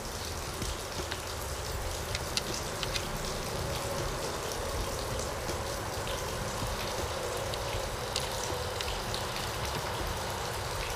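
Scattered light clicks of small plastic parts and screws being handled and fitted on an outboard's powerhead, over a steady rushing background noise.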